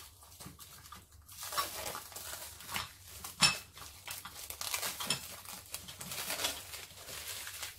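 Plastic film crinkling as it is peeled off small bowls, with light clinks of the dishes and one sharp click about three and a half seconds in.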